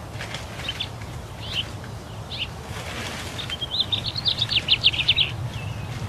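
A songbird singing: a few short, falling chirps, then a fast run of rapid notes about three and a half to five seconds in, the loudest part. A steady low hum runs beneath.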